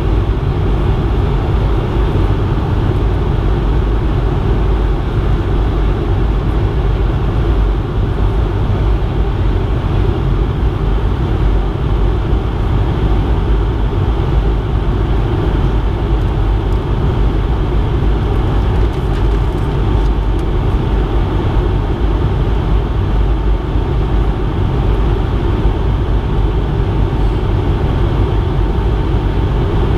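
Steady cabin noise inside a Bombardier CS100 (Airbus A220-100) airliner: a continuous deep rumble of engines and airflow with a faint steady tone above it.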